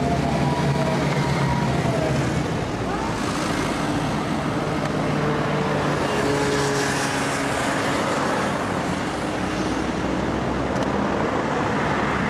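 Police motorcycles riding past with their engines running in the first couple of seconds, then steady road traffic with cars driving by.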